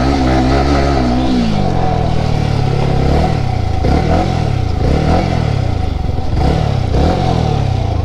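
Yamaha R15's single-cylinder engine running while ridden: the revs hold steady, drop about a second and a half in, then rise and fall over and over, about once a second.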